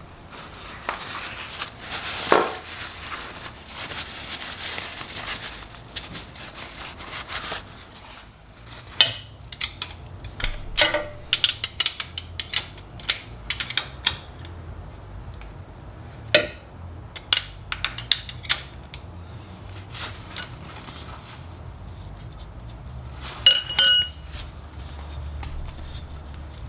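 Wrench and hand tools working a nut on a motorcycle engine's clutch cover: handling and rubbing at first, then a run of sharp, irregular metallic clicks and clinks, with one ringing clink near the end.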